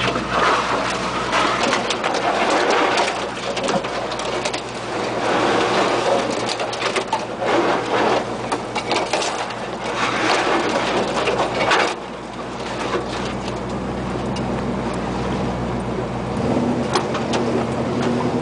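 GMC 4x4 truck heard from inside the cab, its engine running at low trail speed under uneven knocks and rattles as it rocks over the rough, rutted trail. The engine note shifts lower about two seconds before the end.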